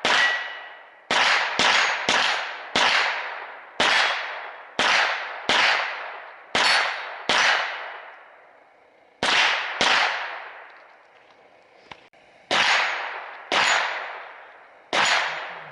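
Semi-automatic .22 LR shots from an AR-style rifle fitted with a .22 LR conversion kit, about fifteen shots fired in quick runs with two short pauses, each shot trailing off over about a second.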